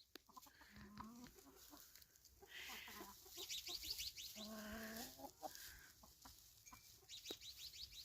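Hens clucking faintly: a few short, low calls about a second in and again midway, with scattered soft clicks between them.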